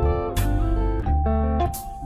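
Background music: guitar-led instrumental with a steady beat and bass line.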